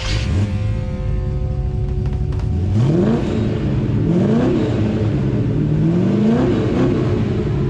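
The truck's crate 350 V8 idling through its exhaust, blipped up in revs about three times, each rev rising quickly and dropping back to idle.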